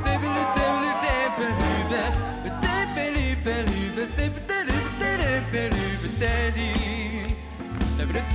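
Pop song with a heavy pulsing bass beat, in a stretch without lyrics. A lead melody slides and wavers in pitch over the first few seconds.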